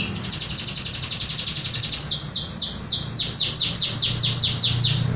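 Domestic canary singing its own natural song, with no imitated phrases of other birds. It sings a rapid trill for about two seconds, then a run of quick falling notes at about five a second that stops near the end.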